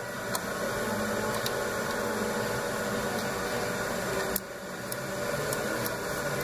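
Steady hum of shop machinery, with a few light metallic clicks as the feed plate and clamp of a Juki LK-1900B bartacker are handled and fitted into place.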